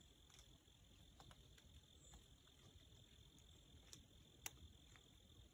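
Near silence: a faint, steady high-pitched hum with a few faint scattered ticks, the sharpest about four and a half seconds in.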